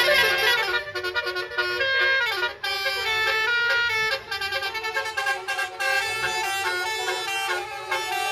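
Multi-note musical vehicle horn of the Indonesian telolet kind, playing a tune: pitched horn notes that step up and down every fraction of a second, loudest in the first second.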